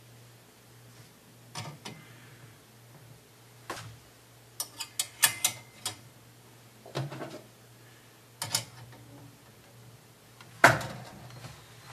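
Metal S-hooks and the hanging utensils clicking and clinking against a stainless steel rail rack as utensils are hung on it. The clicks are scattered, with a quick cluster about five seconds in and the loudest clink, ringing briefly, near the end.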